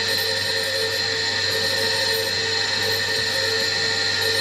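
Surface grinder running, its abrasive wheel taking a light finishing pass over small steel washers held on the magnetic chuck: a steady machine whine over a low hum, with a faint hiss that comes and goes.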